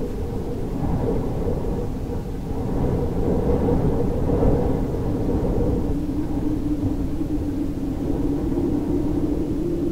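Steady, deep rumbling wind with a low droning tone in it that drops in pitch about six seconds in.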